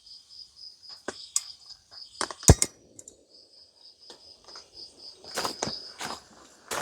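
Night insects chirping in a steady, evenly pulsing high trill, with scattered clicks and knocks of things being handled and set down; the loudest knock comes about two and a half seconds in.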